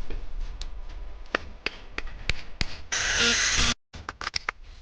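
Scattered sharp clicks and light knocks of small metal parts and tools being handled during an angle-grinder repair, with a short loud hiss about three seconds in that cuts off suddenly.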